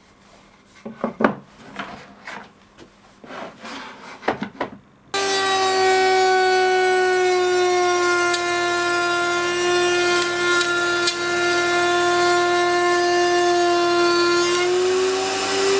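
A few light wooden knocks and clicks of a board being handled on a router table, then, about five seconds in, the table-mounted router starts and runs with a loud steady whine as a solid-wood board is fed along the fence to mill a rebate. Its pitch sags slightly under the cut and rises again near the end as the cut finishes.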